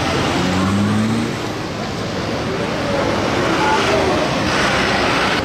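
Street traffic passing close by. A van drives past with its engine note rising briefly about half a second in. Near the end a light diesel truck comes alongside and the traffic noise grows louder.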